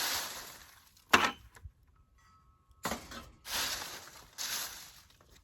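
Dry leaves rustling in several swishing bursts as they are dumped and spread over a raised bed, with one sharp click about a second in.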